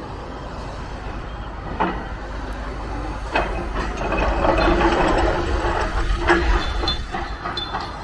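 Building demolition in progress: machinery knocking and crunching through rubble, with separate knocks and a louder stretch of crunching about halfway through. Wind rumbles on the microphone throughout.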